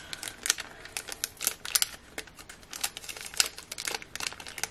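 Crinkling and light clicks of craft packaging and cardstock as a pack of small card frames is turned over in the hands, in short irregular bursts.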